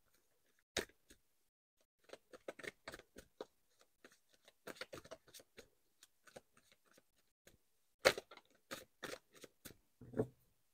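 Tarot cards being shuffled by hand: a run of soft, irregular card flicks and clicks, with a louder snap about eight seconds in.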